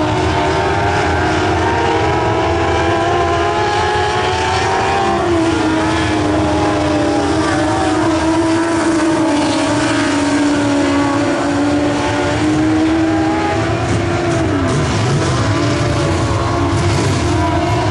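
A pack of dirt-track race cars running laps together, several engines held at high revs, their pitch dipping and rising again as they back off for the turns and accelerate out.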